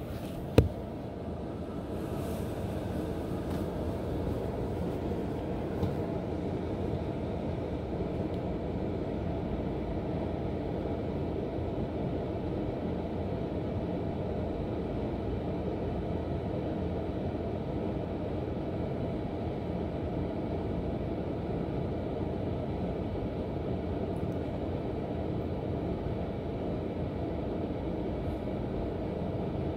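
Hotel room air conditioner running with a steady hum and rush, picked up through the unit the camera is resting on. A single sharp knock about half a second in.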